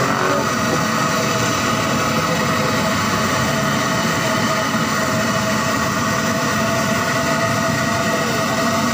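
Raw-mince kebabs deep-frying in a large iron karahi of oil: a steady sizzle of bubbling oil over a continuous low rumble.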